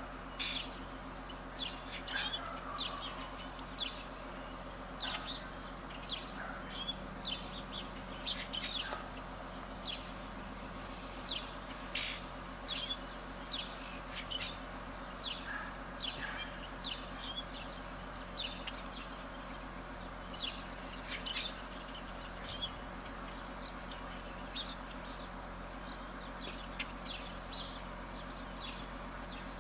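Small songbirds chirping: many short, high, quickly falling chirps scattered throughout, busiest in the first half, over a steady low hum.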